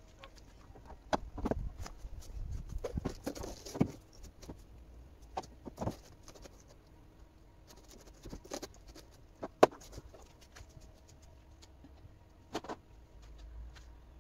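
Scattered clicks and knocks of metal and plastic car parts being handled and offered up to a car's front end, busiest in the first few seconds, with single sharp knocks near the middle and near the end.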